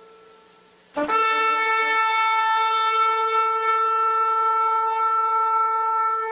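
Shofar being blown. The tail of a note dies away, then about a second in a new long blast starts sharply and holds steady on one pitch.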